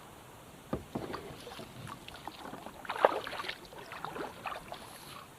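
Kayak on the water: irregular knocks and short splashy sounds as the boat is handled and moved, with the loudest knock about three seconds in.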